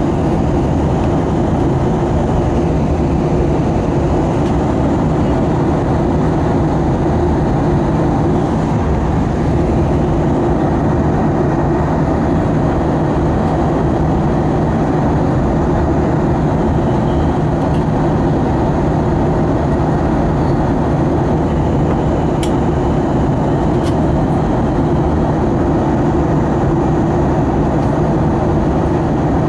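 Steady cabin noise inside an Airbus A320 in flight: a constant rush of engine and airflow noise with a low, even hum underneath.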